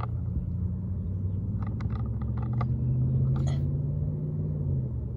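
A low, steady engine-like rumble with a faint hum that swells slightly in the middle, and a few light clicks about two seconds in.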